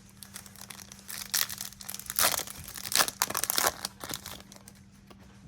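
Foil wrapper of a Yu-Gi-Oh booster pack being torn open and crinkled by hand, in a run of irregular sharp crackles, loudest in the middle and fading near the end.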